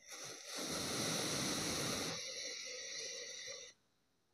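Metal blades of a plastic apple slicer pressed down through a block of kinetic sand: a steady gritty hiss of sand being sliced, a little weaker in its second half, that stops suddenly.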